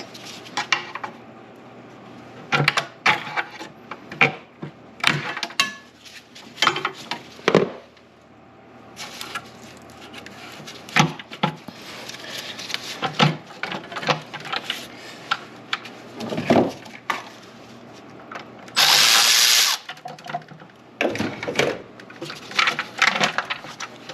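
Scattered clicks, knocks and rattles of tools and plastic engine parts as the upper intake manifold is worked loose from the engine. About three-quarters of the way through, a power tool runs in one loud burst of about a second.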